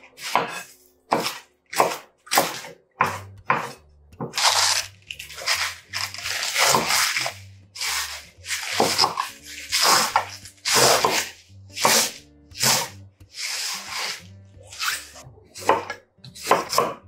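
Kitchen knife slicing through crisp lettuce leaves and then cucumber on an end-grain wooden cutting board: a steady run of crunchy cuts and knocks on the board, one or two a second. Background music with a low bass line comes in about three seconds in.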